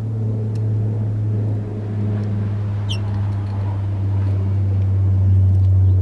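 A loud, steady low mechanical hum with a few overtones, like an engine or machine running. About halfway through comes a single brief high chirp from a small bird.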